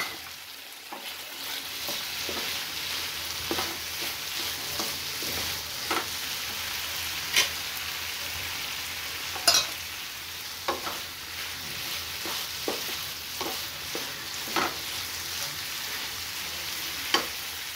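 Mola fish, potato and jackfruit-seed chorchori sizzling steadily in a nonstick frying pan. A wooden spatula stirs it, scraping and knocking against the pan every second or two.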